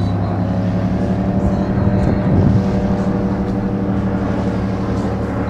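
Military fighter jet flying low overhead, its engines making a steady drone that swells to its loudest about two and a half seconds in and then eases off.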